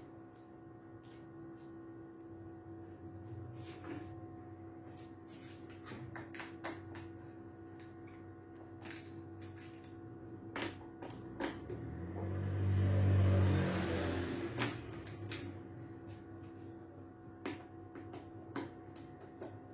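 Small clicks and taps of hand tools on the screws and metal frame of an opened 27-inch iMac, over a steady hum. About twelve seconds in, a louder whirring hiss lasts about two seconds.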